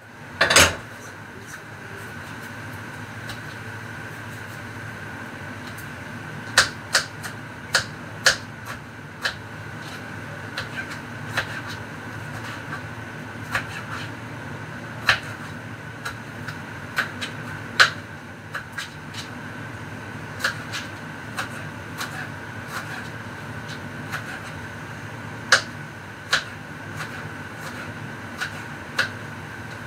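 Kitchen utensils and dishes clinking and knocking now and then, about twenty short sharp clicks at irregular intervals, over a steady hum.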